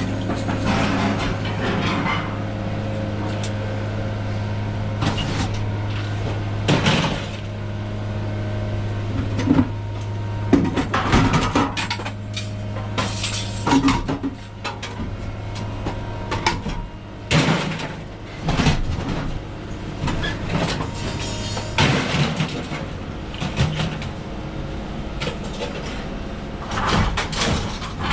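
A vehicle engine runs with a steady low hum through the first half, then fades. Repeated knocks and clatters run throughout and grow more frequent in the second half.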